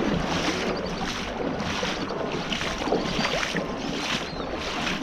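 Wading through a shallow, rocky stream with a scoop net: water sloshing and splashing around the legs in an even rhythm of about two steps a second, with wind on the microphone.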